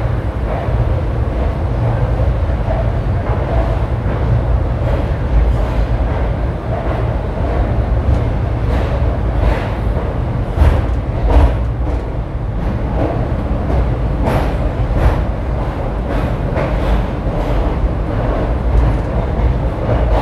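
Passenger express train rolling slowly out of a station, heard from on board: a steady low rumble with wheels clicking irregularly over rail joints and points. The clicks grow more frequent from about a third of the way in.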